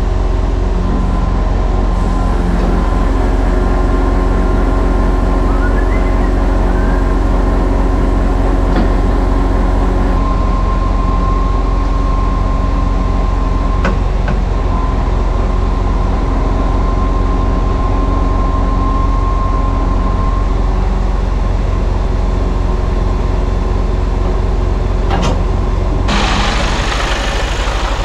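Truck's diesel engine running to drive the loader crane's hydraulics, with a steady whine from the hydraulic system and a few sharp knocks as the crane moves a rack. Near the end a rougher rushing noise comes in.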